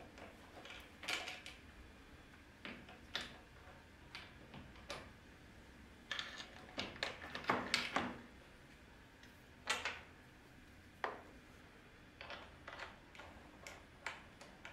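Scattered light clicks and knocks of wood and clamp hardware being handled while a plywood extension fence and stop block are set up on a table-saw crosscut sled, with a cluster of quick knocks partway through. The saw is not running.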